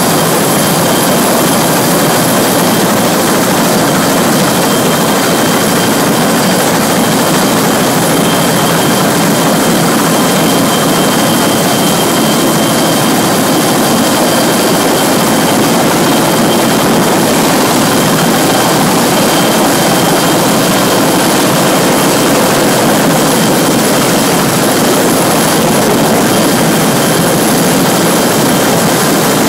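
CH-53 heavy-lift helicopter's turbine engines and rotor running steadily as it approaches, hovers and sets down, a loud constant rush with a high turbine whine over it.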